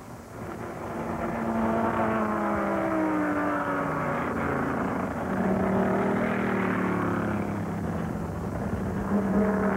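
Racing car engines at speed passing one after another, each engine note falling in pitch as the car goes by, with a second car swelling up about halfway through.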